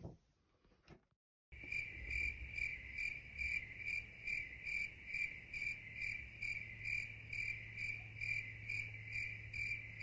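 Insect chirping: a high, even trill pulsing about twice a second, like a cricket's call. It starts about a second and a half in, after a short silence.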